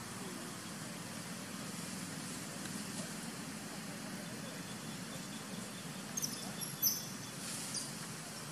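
Steady outdoor background noise, with a few short, high-pitched chirps about six to seven seconds in.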